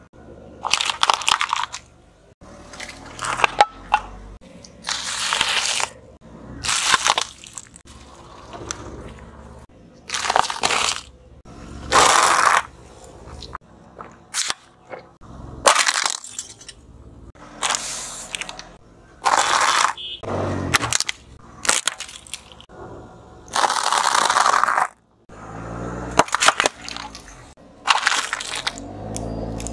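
Objects crushed one after another under a car tyre: a raw carrot, a plastic bottle and small plastic snack cups. About a dozen separate crunching and cracking bursts, each a second or so long, with short gaps between.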